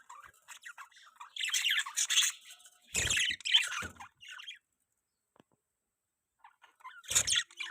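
Budgerigars chattering and squawking in harsh bursts, with a quiet stretch of a couple of seconds before a last burst near the end.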